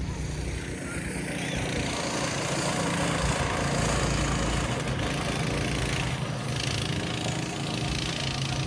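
A vehicle engine running steadily, with a rushing noise that swells over the first few seconds and then eases off.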